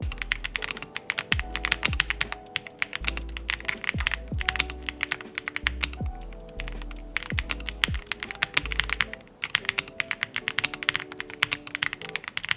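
Fast typing on a Monsgeek M1 V5 mechanical keyboard: a dense, irregular run of key clacks, pausing briefly about two-thirds of the way through, over background music with a bass line and drum beats.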